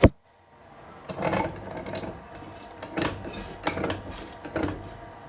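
A sharp knock, then several short clattering and rubbing noises of hard objects being handled and set down, about a second apart.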